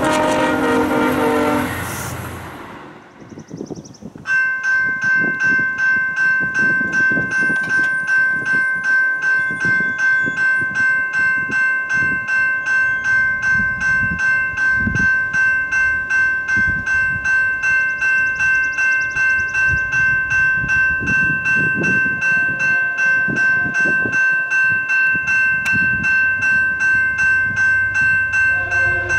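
VIA Rail diesel locomotive's horn sounding a chord, cutting off about two seconds in. After a short lull a railroad crossing bell starts ringing steadily, about two strikes a second, with irregular low rumbling beneath.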